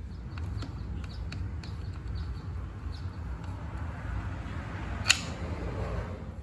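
Light clicks and handling noises of a fuel line clamp being fitted to a small engine's rubber fuel line, with one sharp click about five seconds in, over a steady low rumble.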